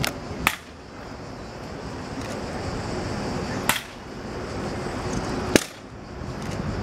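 Steady background noise of a busy city square, broken by four sharp clicks: two close together at the start, one a few seconds later and one near the end.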